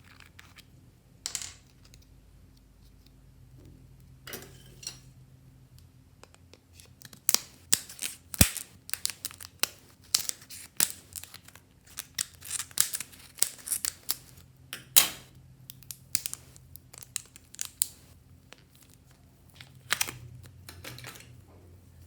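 Clear slime being worked by hand, with sticky pops and crackles coming in irregular clusters, a few at first and then thick and fast through the middle.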